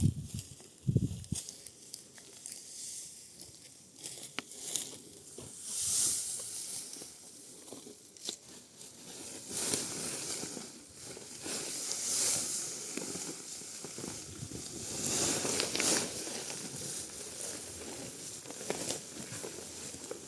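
Dry, ripe wheat stalks rustling and crunching in irregular swishes and crackles as they are cut and handled by hand.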